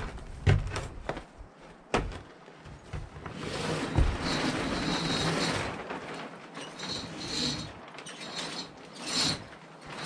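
A plastic tarp wall being let down by rope: the tarp rustles and the rope runs, with a few sharp knocks in the first few seconds and a longer stretch of rustling midway.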